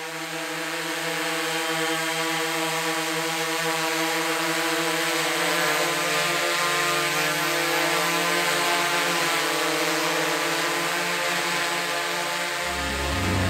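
Flightcopter FC8-1200 octocopter's eight XNova brushless motors and propellers humming steadily as it hovers, a pitched multirotor drone whine that fades in over the first second or two. Electronic music with a deep bass comes in near the end.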